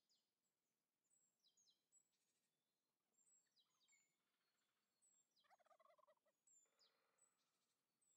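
Faint, distant wild turkey gobbling: a rapid rattling call about five and a half seconds in and a fainter one about a second later. Thin, high songbird chirps falling in pitch repeat throughout.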